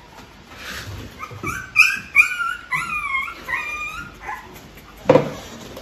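Three-week-old American Bully puppy whining: a run of short, high-pitched cries that rise and fall, lasting about three seconds.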